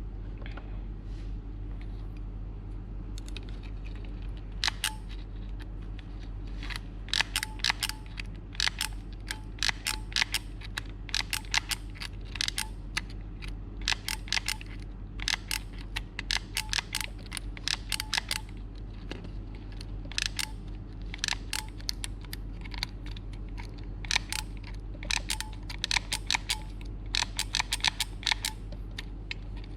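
Repeated clicking in quick runs of several clicks, from the trigger and solder-feed mechanism of a WIPRO 80 W automatic soldering gun, over a steady low hum.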